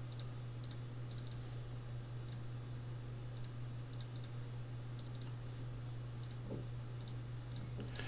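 Computer mouse clicking: light, sharp clicks, often in pairs, every second or so, over a steady low hum.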